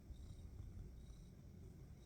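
Domestic cat purring faintly, a low continuous rumble that pulses with its breathing.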